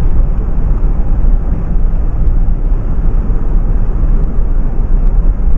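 Steady road noise inside a Renault Mégane 1.5 dCi driving on a wet road: a heavy low rumble with tyre hiss from the water on the tarmac. The diesel engine itself is barely heard.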